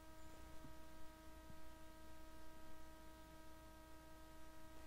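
Faint steady electrical hum, with a few thin unchanging tones above it and nothing else.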